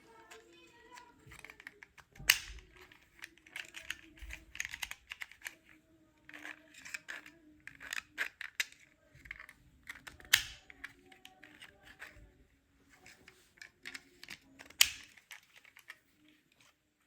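Pieces of a 3D-printed plastic toddler cabinet lock being handled and fitted together: a run of small plastic clicks and rattles, with three loud sharp snaps about two, ten and fifteen seconds in.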